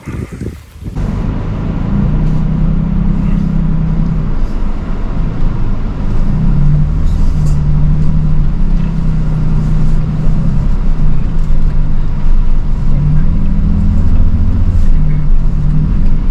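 A vehicle's engine and driving noise heard from inside while it drives off-road. It starts about a second in, and the engine's pitch steps up and down as it goes.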